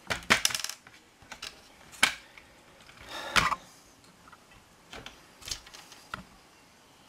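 Metal air-rifle parts and tools being handled on a workbench, clicking and knocking against each other. A quick run of metallic clicks comes at the start, a sharp click about two seconds in and a short clatter at about three and a half seconds, followed by a few lighter taps.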